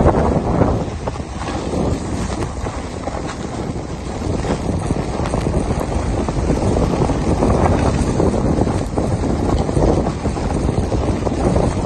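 Wind buffeting the microphone during a fast descent down a ski slope: a loud, uneven rushing noise that grows louder about four seconds in.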